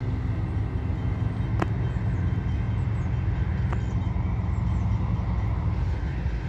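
Low, steady rumble of an approaching freight train led by a Union Pacific diesel locomotive, with two sharp clicks.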